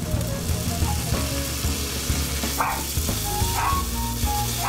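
Glass noodles, ham and snow peas sizzling in a hot frying pan as yakiniku sauce is poured in and the mix is stirred with chopsticks. A dog barks twice in the second half.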